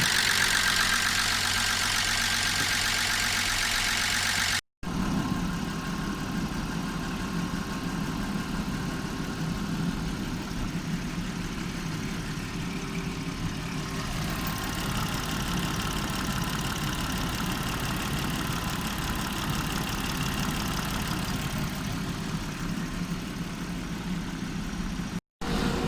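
A used 2.6-litre replacement engine idling steadily as it warms up, its hydraulic lifters pumping up with oil so that the lifter knock can clear. The sound drops out briefly at two cuts; after the first, it is duller and heavier.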